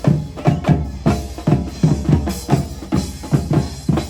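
A group of drummers playing live: a fast, steady rhythm of deep drum strikes, about four or five a second.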